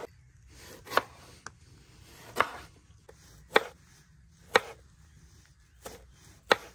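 Chef's knife chopping tomatoes on a wooden cutting board: about seven sharp knocks of the blade striking the board, roughly one a second and unevenly spaced.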